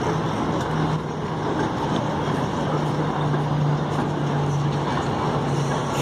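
Steady city street noise from streetcars and road traffic, a constant wash of sound with a low, steady hum underneath.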